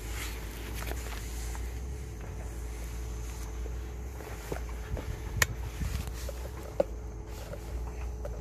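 Hands handling a chainsaw: light knocks and rustling over a low steady rumble, with two sharp clicks about five and a half and seven seconds in.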